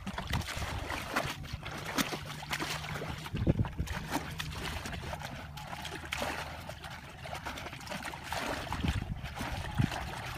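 Muddy water splashing and pouring as a plastic bucket is repeatedly dipped and emptied, bailing out a shallow pool, with scattered splashes from people wading.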